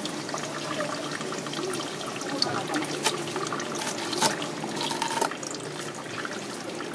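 Water running from a tap, with a few sharp knocks and clatters over the top.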